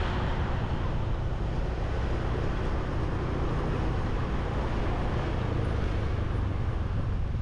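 Motorbike on the move: a steady engine and road rumble, with wind on the action camera's microphone.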